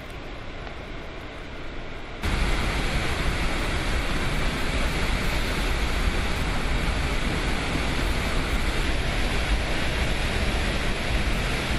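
Water rushing out of a dam spillway in a heavy torrent: a steady rush of water noise. About two seconds in it jumps suddenly louder, with a deep rumble underneath.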